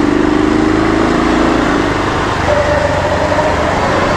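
Motorcycle engine pulling away and gathering speed, its note rising a little, under heavy wind rush on the chest-mounted GoPro's built-in microphone.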